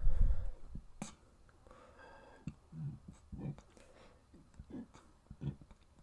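A pause between burps: a short low sound right at the start, then faint breathing and small mouth and throat noises, with a few soft low grunts.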